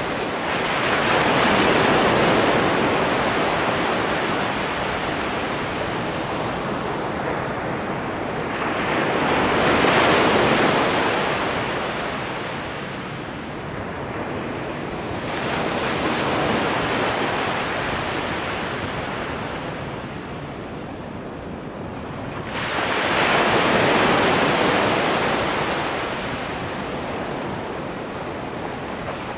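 Ocean surf breaking on a sandy beach: four waves crash and wash up the shore, each swelling and then fading over several seconds.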